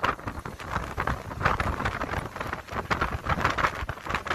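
Strong gusting wind buffeting the microphone: a low rumble with irregular rapid flutters and knocks.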